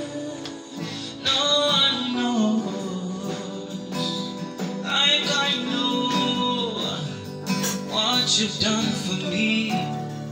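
Live band music led by guitar, playing a gospel worship song.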